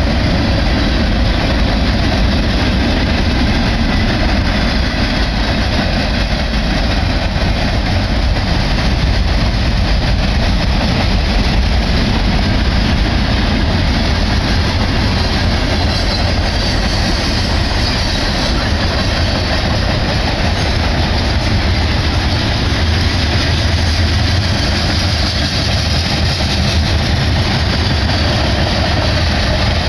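Freight cars of a BNSF manifest train, mostly tank cars, rolling past: steel wheels on rail in a steady, loud rumble that does not let up.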